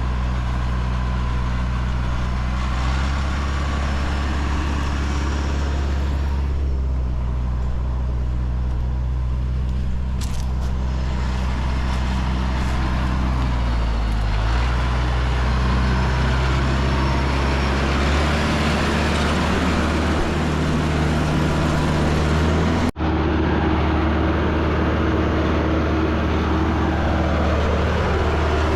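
Tractor engine running steadily under load, its speed shifting a little now and then, with a brief dropout about two-thirds of the way through.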